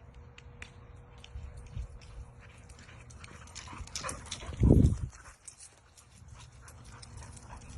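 A dog moving about close by, with many light clicks and rustles, and one low thump a little past halfway.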